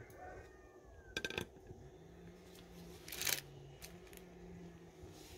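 Wood fire crackling: a quick run of sharp pops about a second in and a louder crackle about three seconds in.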